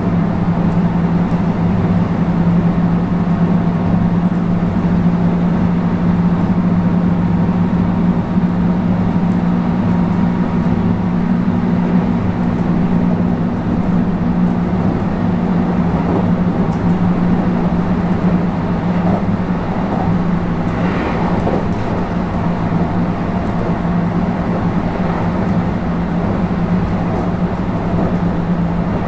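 Running noise inside a JR West 221 series electric train's motor car, with the MT64 traction motors humming (growling) steadily over wheel and rail noise. One of the motor tones drops out about halfway through.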